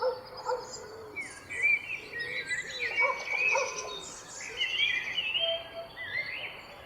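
Several wild birds singing at once: overlapping chirps and warbling whistled phrases, mostly high, with a few lower, shorter notes among them, over a faint steady background hiss.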